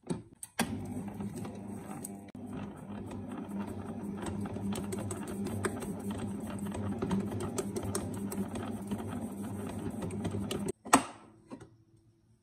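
Stand mixer motor running with a dough hook kneading bread dough: a steady hum with irregular slapping and clicking of the dough against the bowl. It cuts off about eleven seconds in and is followed by a single sharp knock.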